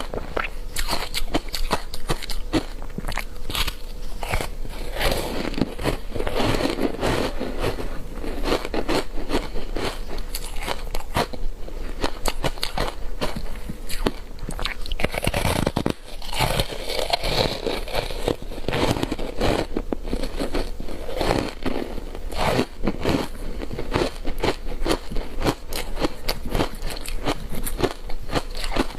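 Frozen matcha powder ice being bitten and chewed close to the microphone: a dense, continuous run of crisp crunches and crackles, with thicker stretches of chewing.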